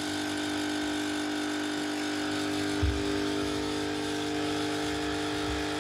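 A small electric motor in a kitchen appliance humming steadily at a fixed pitch, with a single low thump about three seconds in.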